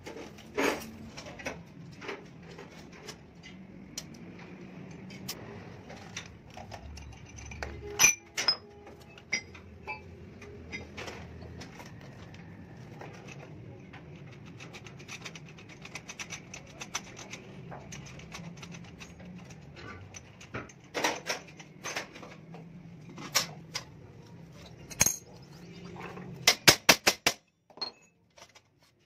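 Steel clutch-disc hub parts, plates and washers, clinking and clicking against each other and the disc as they are handled and fitted by hand, over a faint steady low hum. Near the end comes a quick run of about six sharp metallic taps.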